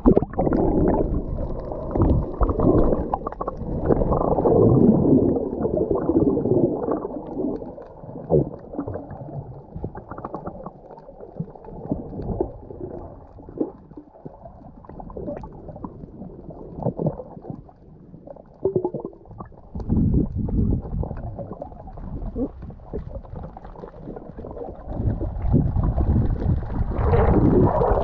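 Muffled underwater sound of a camera held below the sea surface: a low rumble and gurgling of moving water, with a few short knocks.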